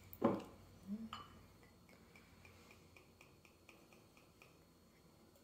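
A glass knocks on a wooden table just after the start, then sake is poured from its bottle into the small glass, glugging faintly at about four glugs a second for a few seconds.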